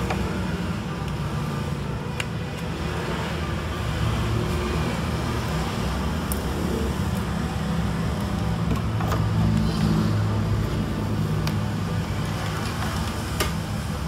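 A steady low rumble in the background, with a few faint clicks about two seconds in and near the end.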